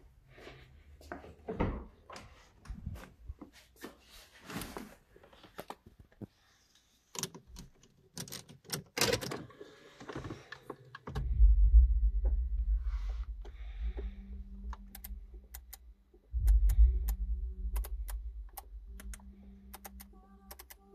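Car door and cabin handling: scattered clicks and a few knocks as the driver gets in. From about halfway a loud low rumble sets in, stopping briefly once, with a run of sharp, evenly spaced clicks.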